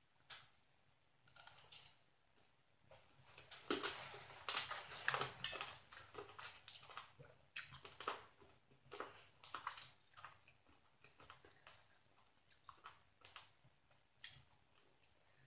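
Close-up chewing of a papaya salad made from rehydrated dried green papaya strands, heard as irregular crunchy clicks. The clicks are densest a few seconds in and sparser after that. The eater finds these strands coarse and tough.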